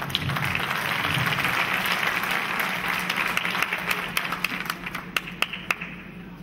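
Theatre audience applauding: dense clapping for about four seconds that thins into scattered single claps and dies away near the end.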